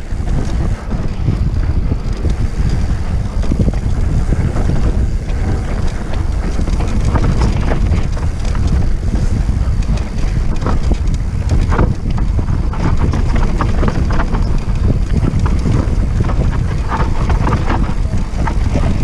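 Wind buffeting the microphone of a mountain bike descending fast on a dirt and rock trail, with a steady low rumble and frequent sharp clicks and knocks as the bike clatters over rough ground.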